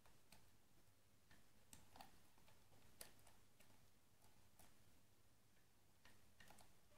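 Faint, irregular metallic clicks of a lock pick working the pins of an Abus pin-tumbler rim cylinder under a tension wrench, with the core held in a deep false set.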